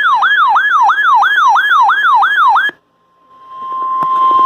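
An electronic siren yelp: a loud tone sweeping rapidly up and down, about three sweeps a second, that cuts off sharply. After a short silence a steady single alert tone, typical of a weather-radio warning alarm, comes in over radio static.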